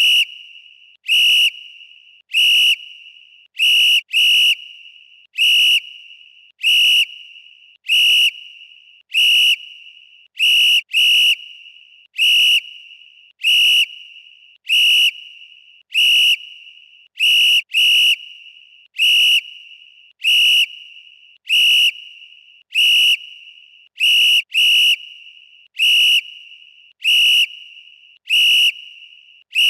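Referee's whistle blown in short, sharp blasts, roughly one a second and now and then two in quick succession. Each blast is a high, steady tone that dies away in a brief echo.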